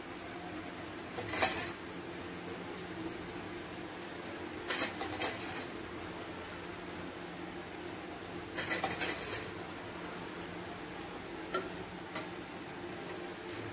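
Metal utensils clinking against a stainless steel bowl in a few short clatters, the first the loudest, over a faint steady low hum.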